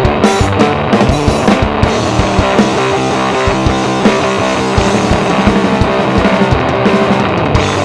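Fender Precision Bass played through a Fuzzrocious Heliotropic fuzz pedal, a heavy fuzzed riff, with a drum kit keeping a steady beat underneath.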